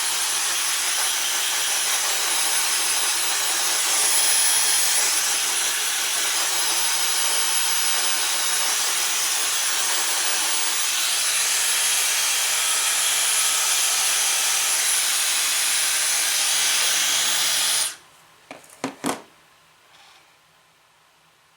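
Dyson hair dryer blowing on high with a steady rush of air and a thin high whine, switched off abruptly near the end, followed by a few quick clicks.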